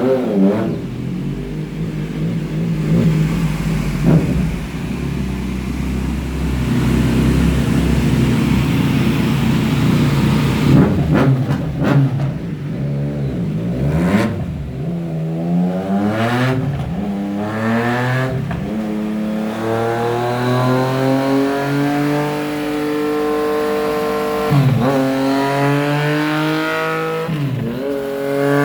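Yamaha MT-09 inline three-cylinder engine through a Hurricane full aftermarket exhaust with carbon-fibre tip. It idles with a few quick throttle blips, then from about halfway accelerates hard, its pitch climbing and dropping at each of several upshifts.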